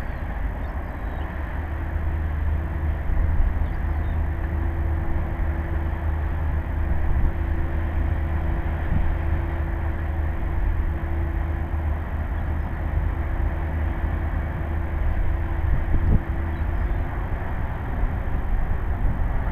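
Low, steady engine rumble from a bulk cargo ship manoeuvring slowly into berth, with a faint steady hum over it that fades out near the end.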